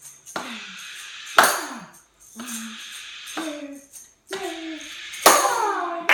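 Children's classroom percussion playing a storm soundscape: a tambourine shaken and struck in a steady beat about once a second, with two much louder crashes, about a second and a half in and near the end, standing for thunder.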